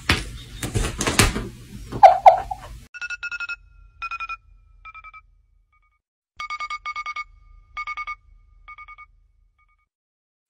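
For the first few seconds, a cat's noisy movements and a short wavering cry. Then an electronic alarm ringtone beeps in quick trilled bursts, several groups whose pitch steps slightly lower, and stops about a second before the end.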